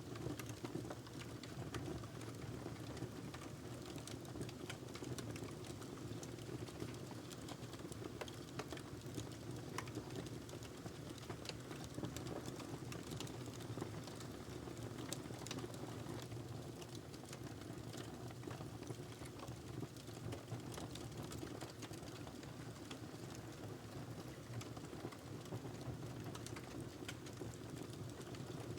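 Wood fire in a fireplace crackling, a steady low rumble of flames with many small, irregular snaps and pops.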